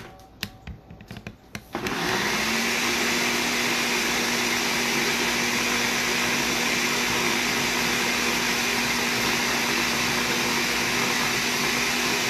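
A few clicks, then about two seconds in a countertop blender's motor spins up and runs at a steady high speed, puréeing herbs, oil and water into a sauce.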